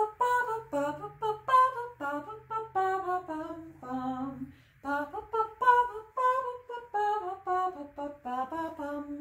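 A woman singing a wordless tune in short, clearly separated notes at about two a second, moving up and down in pitch; near the end she starts a longer held note.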